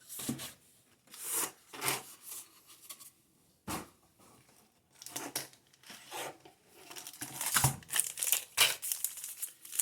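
Packaging from a Pokémon TCG Elite Trainer Box being torn and crinkled by hand, in irregular short bursts that come thicker and louder toward the end.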